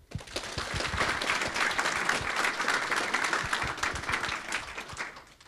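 An audience applauding in a room. It starts suddenly, holds steady and dies away near the end.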